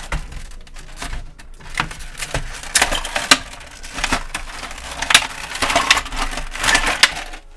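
Thin clear plastic clamshell tray of a toy package being flexed and pried apart by hand. It crackles and clicks over and over, with small plastic accessories knocking inside it.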